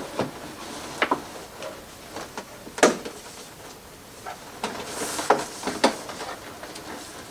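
Irregular knocks and clicks with some rustling as clothes are pulled and adjusted over an animatronic Halloween prop's frame; the loudest knock comes about three seconds in, with a cluster of clicks and rustling around five seconds.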